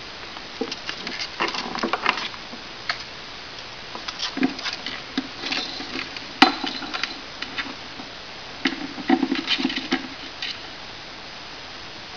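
Black-headed caique playing in a plywood box: scattered clicks, taps and scuffles of its beak and feet on the wood and of its toys being knocked about, with one sharp, louder click about six seconds in.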